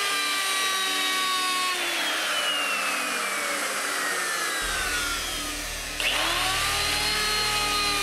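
Makita router with a flush-cut bit trimming the edge of a Lexan (polycarbonate) panel to the shape of the old plexiglass template. Its motor whine sinks steadily in pitch for a few seconds as the bit works through the plastic, then about six seconds in it jumps and climbs back up to speed.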